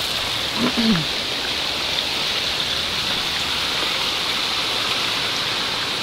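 Waterfall rushing steadily, an even hiss of falling water. A man's voice makes a short, falling sound about a second in.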